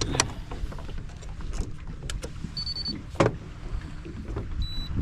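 Sounds aboard a small fishing boat: a steady low rumble with several sharp knocks and thuds, one loudest about three seconds in. There are two short high electronic beeps, one in the middle and one near the end.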